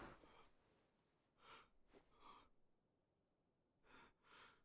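Near silence with faint breathing from a person: two pairs of soft breaths, one pair around a second and a half in and another near the end.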